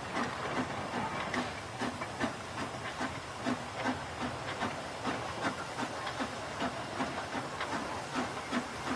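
Hunslet Austerity 0-6-0 saddle tank steam locomotive working hard uphill. Its exhaust beats bark from the chimney in a quick, even rhythm over a steady hiss of steam.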